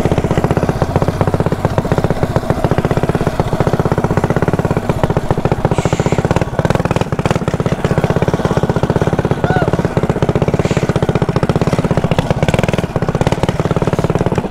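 Mini bike's small engine running close up while being ridden, with a rapid, even pulsing beat.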